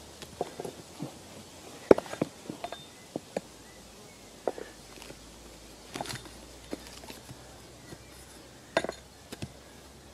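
Axe chopping into a plum-wood stump. There is one sharp, hard strike about two seconds in and another strong one near the end, with lighter irregular knocks and clicks of wood between them.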